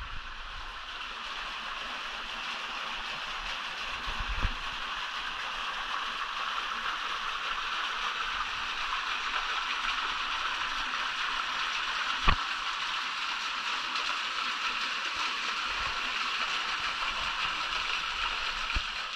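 Steady rush of flowing water, with one sharp click about two-thirds of the way through.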